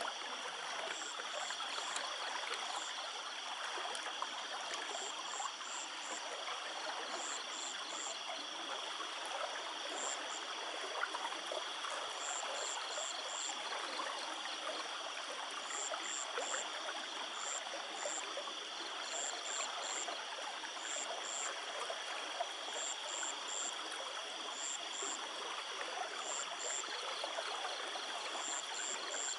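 Water rushing steadily out of a drainage pipe in a strong flow. High chirps in short groups of two to four repeat over it.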